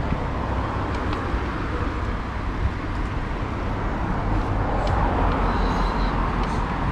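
City street traffic noise heard from a moving bicycle: a steady rumble of cars, with a few light ticks and a brief faint high tone a little after five seconds in.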